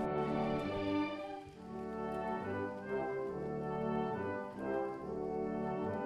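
Orchestral background music led by brass, moving through held chords.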